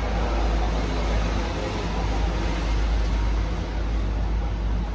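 Inside an Alstom Citadis X05 light rail tram in motion: a steady low rumble from the running gear under a broad, even hiss of wheels on rail.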